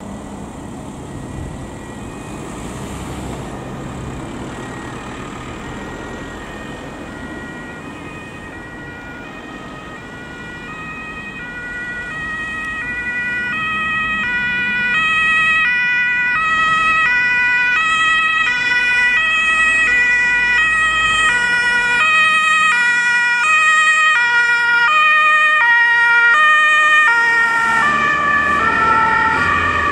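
Two-tone emergency-vehicle sirens (German Martinhorn) alternating between two pitches, more than one horn sounding together, over passing road traffic. The sirens grow louder as the vehicles approach, and their pitch drops near the end as they pass.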